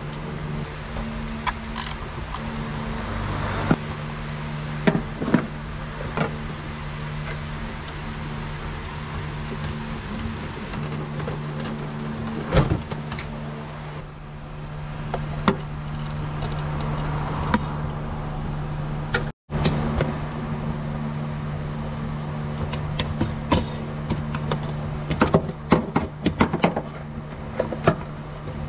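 A steady mechanical hum with scattered clicks and knocks, the knocks coming thicker near the end.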